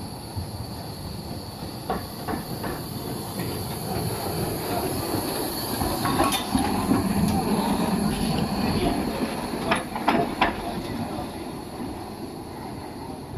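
Steam tank locomotive 310.433 rolling past: a running rumble with sharp clicks of its wheels over the rail joints. It is loudest about halfway through as it goes by close, then fades a little as it moves away.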